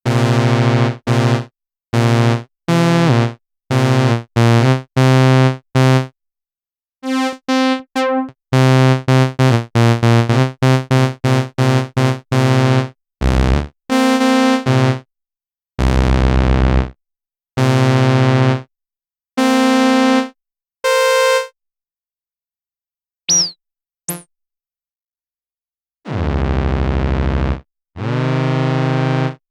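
Behringer Toro analog bass synthesizer playing a series of separate pitched notes with short silences between them, some sliding in pitch. Around two-thirds of the way through comes a brief high rising squeal, then a pause, and near the end two longer notes swoop down into pitch.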